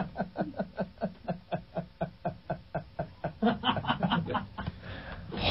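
A man laughing in quick, even pulses, about five a second, fading off near the end.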